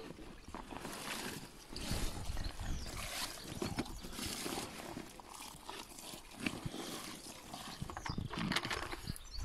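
Rustling of a wet nylon carp weigh sling and unhooking mat being handled, with scattered clicks and knocks from its poles and clips.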